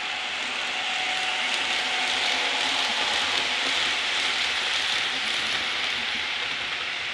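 Model trains running on track: a steady metallic rattle of wheels and motors that swells as a model passenger train passes close by, loudest three to four seconds in, then eases off.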